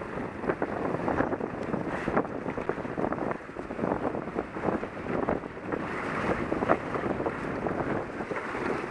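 Wind buffeting the microphone over water rushing along the hulls of an F-24 trimaran under sail, with frequent short splashes.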